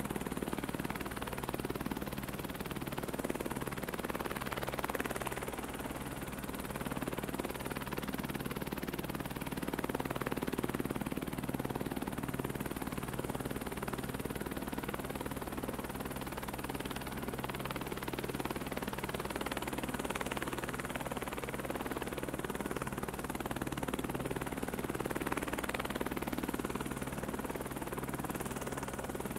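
Steady rotor and motor noise of a rotorcraft in flight, an even drone with a regular low pulsing.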